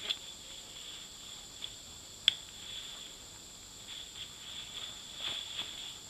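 Aluminium buckle of a Victorinox canvas tactical belt being handled at the waist: a sharp metallic click about two seconds in, with a few softer clicks and rustles, over a steady high-pitched hum.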